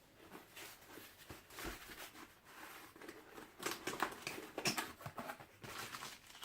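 Rustling and handling of a cardboard software box and its paper manuals and disks, with irregular small clicks and knocks, the loudest about four seconds in and again just under five.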